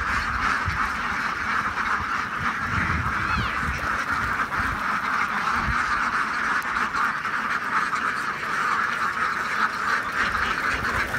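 A large flock of domestic ducks quacking all together in a dense, continuous chorus.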